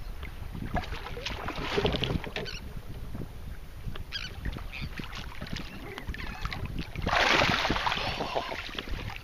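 Wind buffeting the microphone and choppy water against a kayak hull, with a louder rush of noise lasting about a second around seven seconds in.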